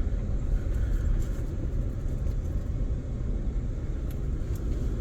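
Steady low rumble of a moving passenger train, heard from inside the car: wheels running on the rails and the car body's running noise.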